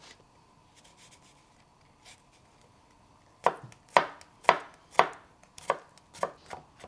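Chef's knife mincing a garlic clove on a wooden cutting board. After about three and a half seconds of light, faint cuts, the blade strikes the board steadily about twice a second.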